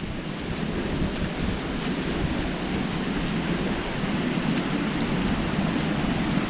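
Steady rushing noise of flowing river water, with wind buffeting the microphone in low uneven rumbles.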